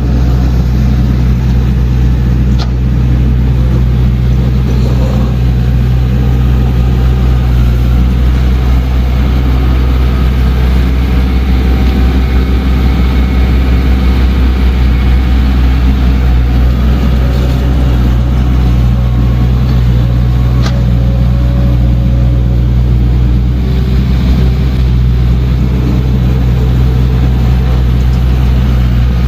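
Diesel engine of heavy earthmoving equipment running steadily under work, with a sharp click twice.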